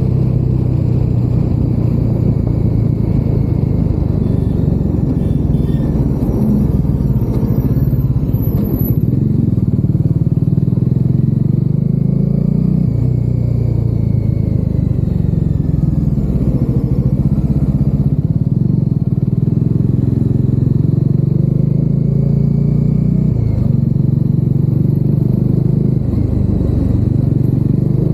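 Bajaj Dominar 400's single-cylinder engine under way, its pitch rising and falling as the rider works the throttle and gears, heard from inside the rider's helmet.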